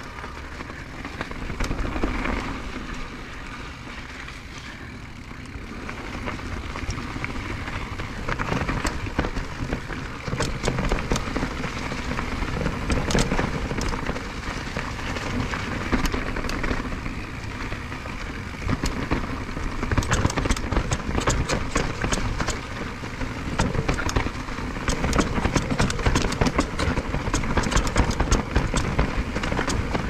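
Mountain bike (a 2022 Nukeproof Dissent Comp) riding down a rough bike-park trail: tyres rolling over dirt and rock under a steady rushing noise, with the chain and frame clattering over bumps, thickest near the end.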